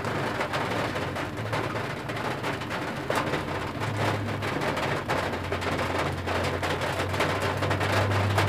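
Rain falling on a vehicle's roof and windscreen, heard from inside the cab as many scattered sharp taps, over the low steady hum of an idling engine.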